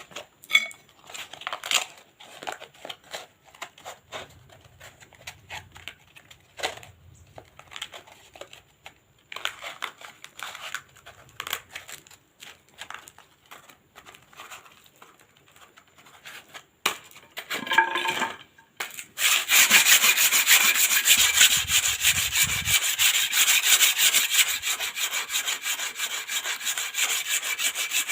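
Scattered clicks, taps and short scrapes of a welded, repaired steel knife being handled. About nineteen seconds in, fast continuous rubbing strokes begin, of the blade being abraded by hand to smooth and shape it.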